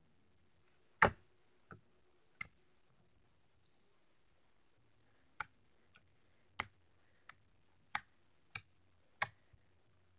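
White putty-like homemade slime clicking as fingers knead, press and stretch it: a series of short sharp clicks, the loudest about a second in. Three come early, then after a pause of about three seconds a quicker run of roughly one every two-thirds of a second.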